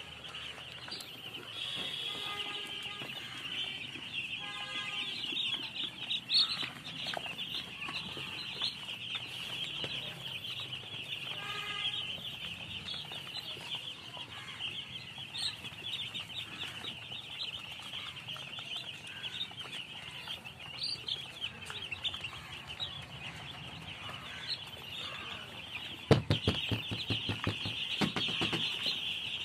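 A brood of baby chicks peeping continuously, many high chirps overlapping. A few lower calls stand out early and near the middle, and near the end a run of knocks or thumps is the loudest sound.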